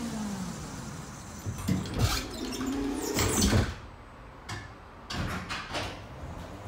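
Tatra tram's traction motors whining down in pitch as it brakes to a stop. Then a run of loud clunks and rattles, and a few sharp clicks near the end.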